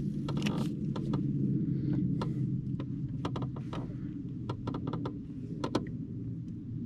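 Handling noise from a spinning rod and reel: scattered sharp clicks and taps, several in quick runs in the second half, over a steady low rumble.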